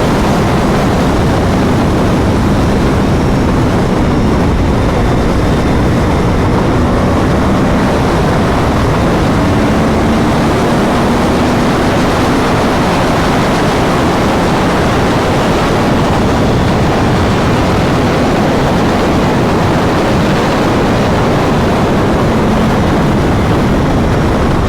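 Heavy wind rush at highway speed, with a sport motorcycle's engine running steadily underneath, its pitch drifting up and down a little.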